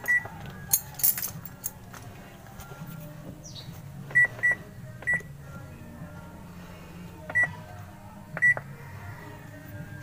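Control panel of a Sharp top-load automatic washing machine beeping as its buttons are pressed to start it: six short high beeps, with a few clicks near the start over a steady low hum.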